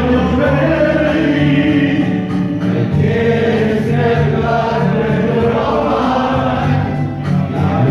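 Music with several voices singing together, choir-like, over a moving bass line, in a romantic bolero.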